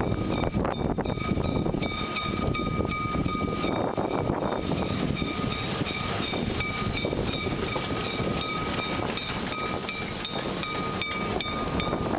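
Articulated Saxon IV K narrow-gauge steam locomotive and its coaches passing close by on a curve, rumbling with many sharp clicks. Over this a steady high squeal starts about a second in and breaks off briefly a few times, typical of wheel flanges grinding on a tight curve.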